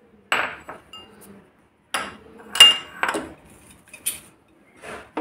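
Kitchen dishes and utensils being handled on the counter: a series of separate clinks and knocks, the loudest about two and a half seconds in with a short ring.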